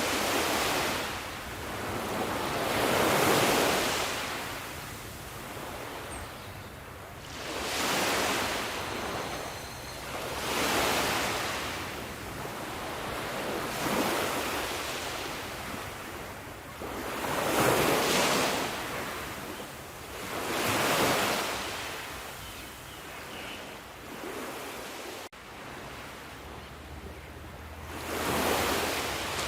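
Sea waves breaking and washing up a shore, one after another, each surge of surf swelling and fading every three to four seconds.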